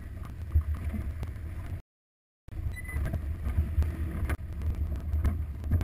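Low, steady rumble of a Jeep Wrangler crawling over rock, with a few short knocks from the tyres and body meeting the rock. The sound cuts out completely for about half a second, about two seconds in.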